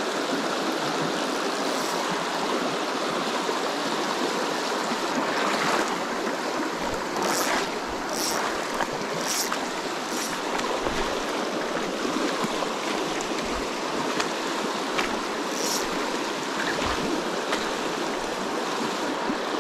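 Fast, shallow mountain stream rushing over a cobbled riffle: a steady wash of water noise. A few brief, high swishes cut in around the middle and once more near the end.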